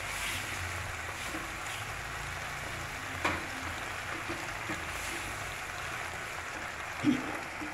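Tomato pieces sizzling steadily in oil with a little water in a frying pan, stirred with a wooden spatula that clicks against the pan about three seconds in and again near the end.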